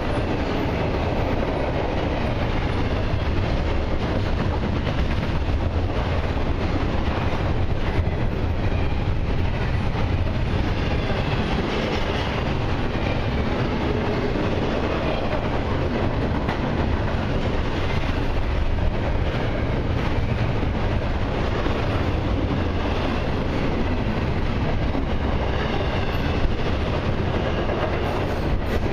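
Double-stack intermodal container well cars rolling past on steel wheels: a steady rumble and rattle of wheels on rail, with intermittent clickety-clack.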